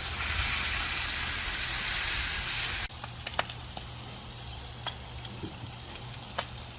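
Bacon sizzling loudly on a hot flat-top griddle. It cuts off abruptly about three seconds in, leaving a much quieter background with a few sharp ticks.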